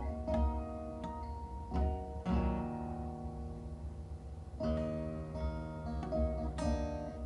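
Background music: plucked guitar notes over a steady low bass.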